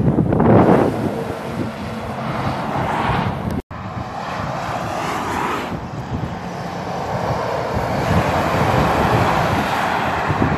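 Motorway traffic noise: vehicles and trucks passing with a steady rumble and tyre hiss that swells and fades as they go by. The sound cuts out for an instant about three and a half seconds in.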